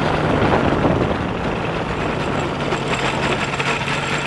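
Engine and pusher propeller of a weight-shift microlight trike running steadily at taxi power, with a steady low drone under a dense noisy rush.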